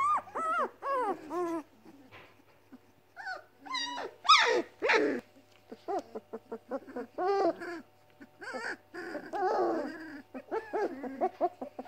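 Weimaraner puppies whining and yelping in a string of short rising-and-falling cries, with two louder, harsher calls about four to five seconds in and a rougher, growly call near the end. The puppies are crying from hunger.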